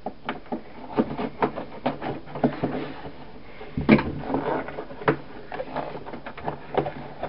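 A cardboard mailing box being handled and pulled open by hand: a string of scrapes, rustles and knocks, the loudest about four seconds in.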